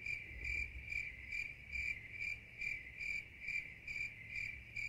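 Crickets chirping steadily outdoors, a high trill that swells in even pulses about two and a half times a second.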